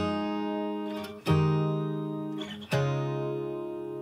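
Background music: three strummed acoustic guitar chords about a second and a half apart, each left ringing.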